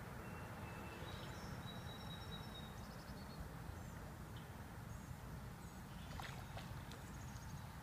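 Faint outdoor ambience over floodwater: a steady low rumble with thin, high bird chirps, and a few light clicks about six seconds in.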